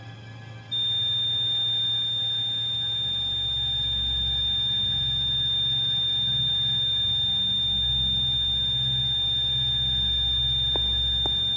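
Patient heart monitor sounding a continuous flatline tone, one steady high beep that starts suddenly about a second in and does not break. A low dark drone of background music runs beneath it. The flatline is the sign that the patient's heart has stopped.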